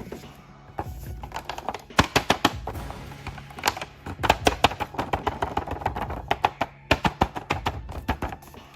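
Background music with a run of sharp clicks and taps, several a second, from about two seconds in until near the end.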